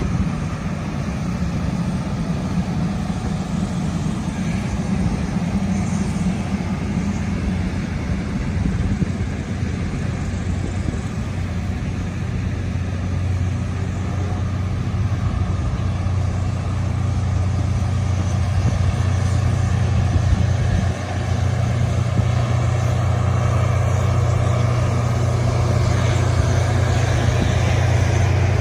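Union Pacific passenger cars rolling slowly past, their steel wheels rumbling on the rails. A low, steady engine drone grows louder in the second half as the train's diesel locomotives draw near.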